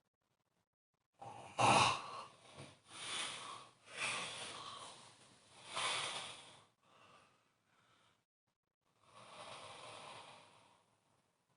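A sleeping person snoring: a run of loud, ragged breaths from about a second in to nearly seven seconds, then after a pause a quieter, steadier breath near the end.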